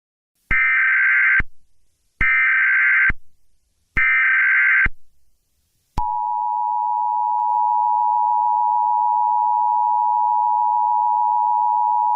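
Emergency Alert System alert opening: three short bursts of the SAME header's digital data tones, each just under a second, then about six seconds in the steady two-tone EAS attention signal starts and holds, marking an emergency alert about to be read.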